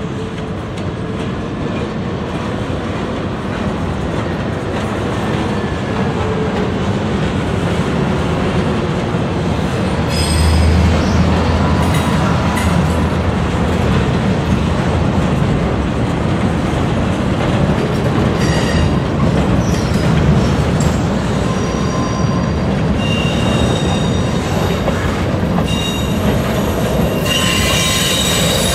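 Freight cars being shoved slowly around a curve, with a steady rolling rumble of steel wheels on rail. High squeals from the wheels come and go, more often in the second half.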